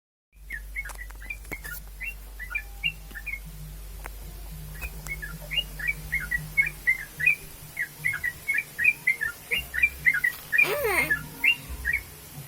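Yellow-vented bulbul (trucukan) singing: quick, repeated phrases of short bubbly notes. A louder gliding squeal comes about ten and a half seconds in.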